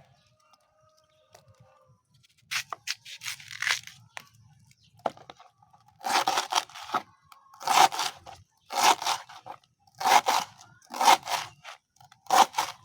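A banana stem being chopped by hand with a blade: wet, crunching cuts, a few softer ones after a couple of seconds, then steady strokes about once a second.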